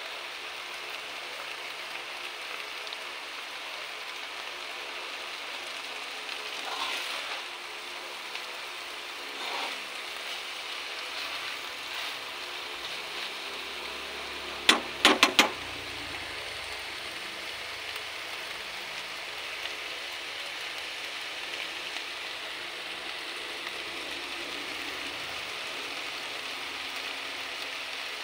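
Moringa leaves, dried anchovies and chilies in coconut milk sizzling steadily in a pan. A metal spatula stirs, and about halfway it knocks sharply on the pan four times in quick succession.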